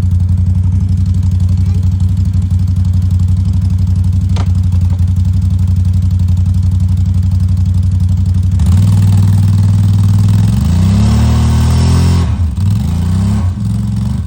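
Can-Am Outlander ATV engine running at a steady speed, then opened up about two-thirds of the way in: the pitch climbs under throttle, drops off sharply, climbs once more briefly and drops again. A single sharp click sounds about four seconds in.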